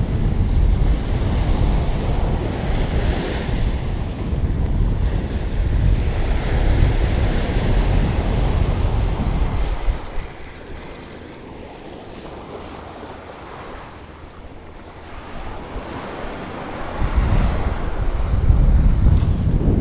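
Ocean surf washing onto a sandy beach, with heavy wind noise buffeting the microphone. About halfway through the wind drops suddenly and the sound goes quieter, then the wind picks up again near the end.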